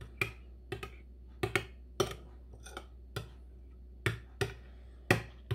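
A metal spoon clinks against a glass bowl while stirring passata, about a dozen irregular sharp clinks, two or three a second.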